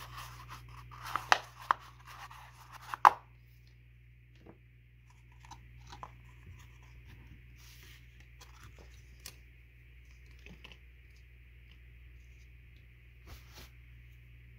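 3M Micropore paper surgical tape torn and pressed onto a thin plastic deli-cup lid: a quick run of sharp crackles and snaps in the first three seconds, then a few faint clicks of the plastic cup and lid being handled.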